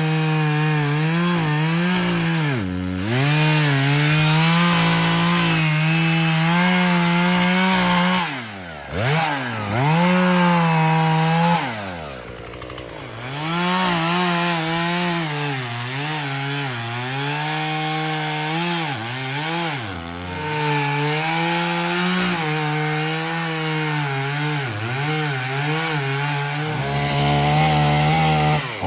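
Chainsaw engine running at high revs while cutting through wood. Its pitch dips repeatedly as the chain bites and the engine bogs under load, then climbs back.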